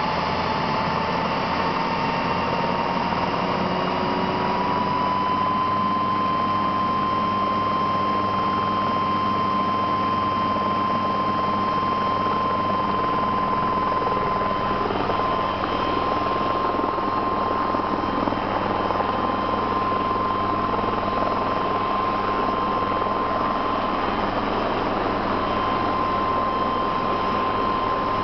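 Helicycle kit helicopter in a hover: its turbine engine whining steadily over the rotor and engine noise. The whine rises slightly in pitch over the first few seconds, then holds steady.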